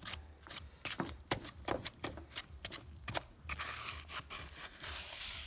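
A wooden stick scrapes and knocks through thick wet grout in a plastic bucket, making an uneven run of sharp clicks and scrapes. In the last two seconds there is a longer, continuous scrape.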